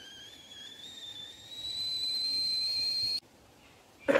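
A high, steady whistle that glides slowly up in pitch and grows louder, then cuts off suddenly about three seconds in. A sharp knock comes near the end.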